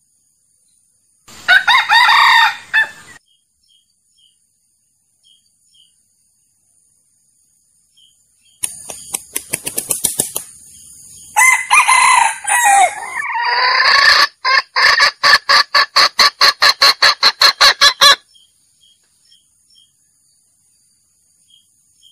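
Junglefowl lure calls: a rooster crow about a second in, then from about nine seconds a long bout of rapid clucking and cackling that ends near eighteen seconds in an even run of sharp calls about four a second.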